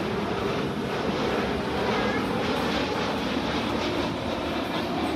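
Airbus A330-300's Rolls-Royce Trent 700 turbofans at approach power as the airliner descends on final with gear down: a steady jet engine noise.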